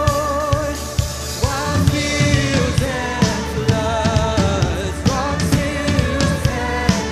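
Live worship band playing an upbeat song, with vibrato singing voices over a steady drum-kit beat.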